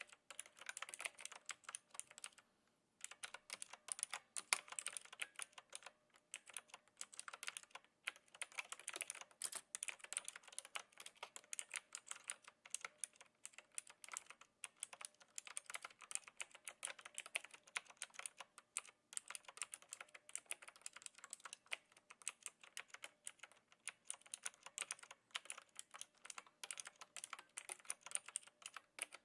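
Knewkey Rymek typewriter-style mechanical keyboard with clicky blue switches, typed on with a light touch: a fast, continuous run of crisp key clicks, with a short pause about three seconds in.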